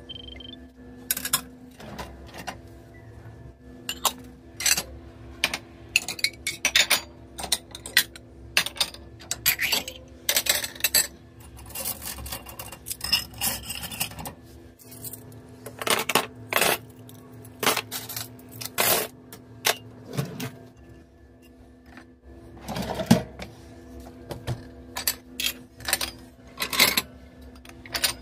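Dishes being unloaded from a dishwasher: ceramic bowls and stainless steel and nonstick pots clinking and knocking against the wire racks and against each other in irregular clatters, over a faint steady hum.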